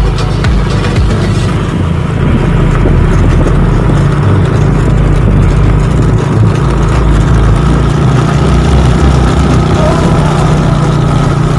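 Yamaha Jupiter motorcycle engine running steadily as it rides along a concrete road, heard as a loud, steady low rumble.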